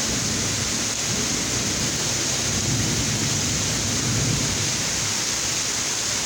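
Heavy rain pouring steadily, with a low rumble of thunder swelling and fading through the middle.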